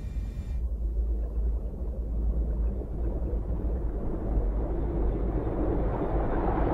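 Submarine diving: a deep, steady rumble with a rushing noise that swells louder over the last couple of seconds.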